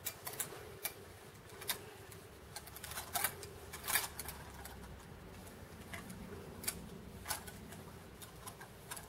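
Clothes hangers clicking and scraping along a shop rail as garments are pushed aside, in irregular light clicks with a faint steady hum behind them.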